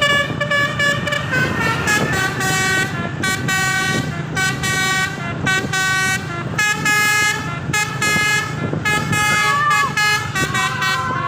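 Basuri 'telolet' multi-tone air horn with roof-mounted trumpets playing a melody: chords of horn notes that change pitch every fraction of a second, over a low steady hum.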